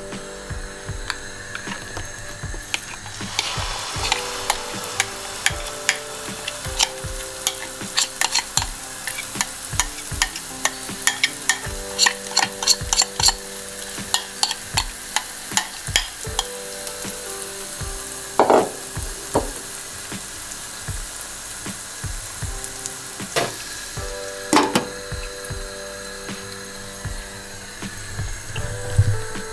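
Walnut kookoo batter sizzling as it is poured and spooned into hot oil in a pot, with a spoon clicking and scraping rapidly against the glass bowl for the first half. A couple of louder clanks of metal on cookware follow.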